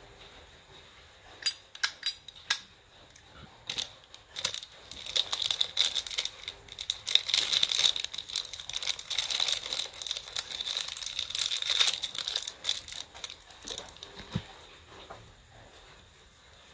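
Handling noise as a Zippo lighter is shown: a few sharp clicks near the start, then several seconds of dense crinkling.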